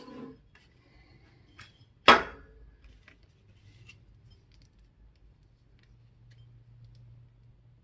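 Small metal and plastic parts and tools being handled on a workbench: one sharp knock about two seconds in, as of something set down hard, then scattered light clicks and taps.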